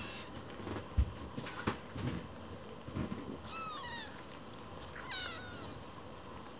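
Kittens mewing: thin, high mews that fall in pitch, a brief one at the start and two clearer ones about three and a half and five seconds in. Between them, soft rustling and a thump about a second in as the kittens move about on the blanket.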